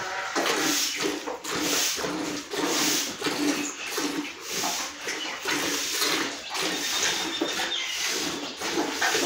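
Hand milking a cow into a metal pail: milk squirting from the teats into the pail in a steady rhythm of hissing squirts, one with each squeeze of the hands.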